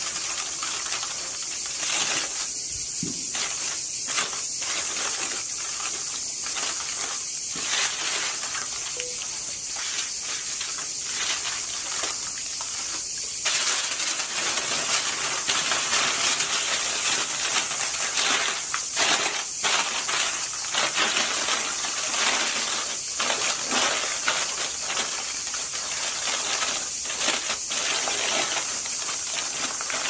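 Aluminium foil crinkling and rustling in irregular bursts as it is folded and wrapped by hand; the crinkling grows louder and denser about halfway through.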